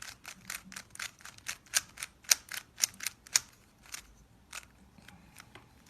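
Rubik's Cube layers being turned quickly, a steady run of plastic clicks about five a second as the left face and the top face are turned over and over. About three and a half seconds in the clicking thins out to a few scattered clicks.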